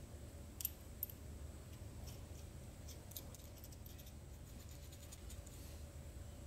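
Small steel nuts and washers clicking against each other and a bolt as they are picked up off a wooden block and threaded onto the bolt by hand. Two sharper clicks come about half a second and a second in, then faint light ticks.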